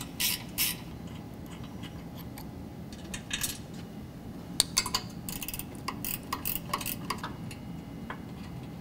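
Light metallic clicks and ticks as the 10 mm bolts holding a Jeep JK's vacuum pump are taken out and the pump is handled, with a short quick run of ticks about five seconds in.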